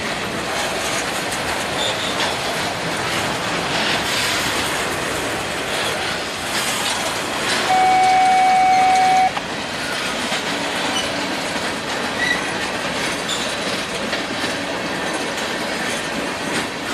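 Freight train's boxcars and tank cars rolling past, steel wheels on rail giving a steady rumble with scattered clicks. A little past halfway, a loud, steady high-pitched tone cuts in and stops abruptly about a second and a half later.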